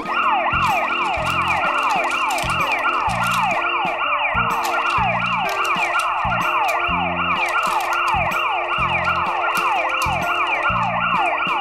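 VTech toy police car playing its electronic siren: a rapid, repeating falling yelp, about three sweeps a second, over a low electronic pulse.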